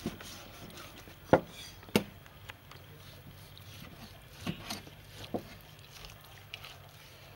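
Steel meat cleaver slicing through a raw pork joint and knocking on a wooden chopping board. Two sharp knocks come a little over a second in, then a few lighter ones about halfway through.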